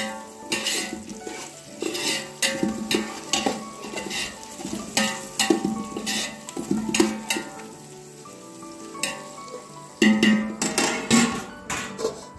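Metal ladle stirring and scraping sliced onions frying in an aluminium pot, with an irregular run of scrapes over the sizzle and a busier burst of strokes near the end. Music plays underneath.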